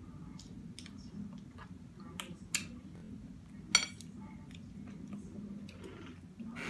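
Eating a seafood boil: chewing with scattered short clicks and cracks of shells, and two louder sharp snaps, about two and a half and nearly four seconds in. A low steady hum lies underneath.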